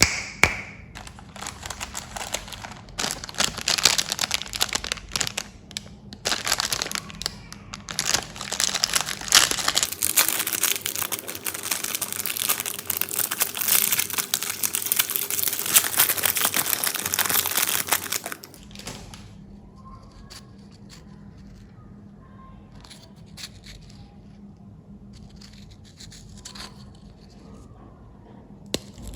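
Plastic candy wrappers crinkling and tearing as candies are unwrapped by hand. Dense, loud crinkling for about the first eighteen seconds, then softer, scattered rustles.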